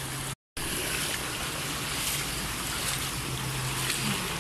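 Floodwater rushing and washing across a street, a steady noisy wash mixed with wind on the microphone. The sound cuts out for a moment about half a second in.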